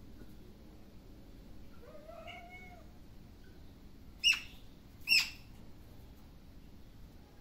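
A cat meows once about two seconds in. Then a small caged bird gives two loud, sharp chirps about a second apart.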